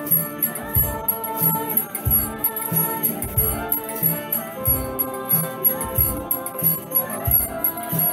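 Kirtan music: harmonium melody and drone over a steady hand-drum beat, with jingling percussion ticking rapidly in the highs.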